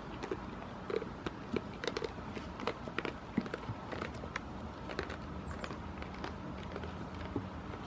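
Goat hooves tapping and clattering irregularly on a hard surface, a few sharp knocks a second.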